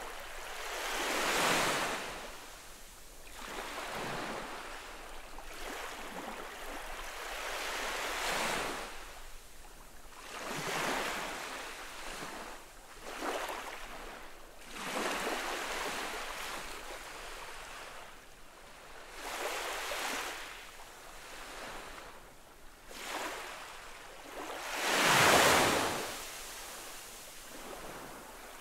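Small ocean waves gently lapping on a sandy shore, each wave a soft wash that swells and fades every few seconds, with the loudest wave coming near the end.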